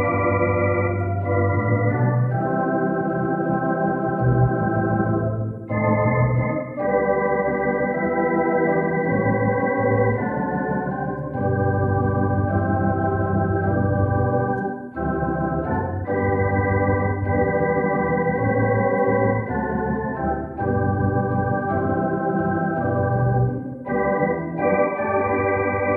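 Organ playing a slow postlude of held chords over sustained bass notes, the chords changing every second or two with brief pauses between phrases.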